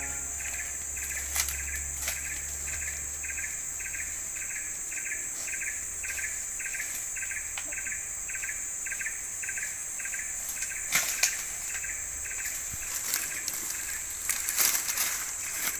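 Tropical forest insects calling: a steady high-pitched drone, with another insect pulsing in an even rhythm of about three chirps a second. A few sharp clicks or knocks break in, several of them in the last few seconds.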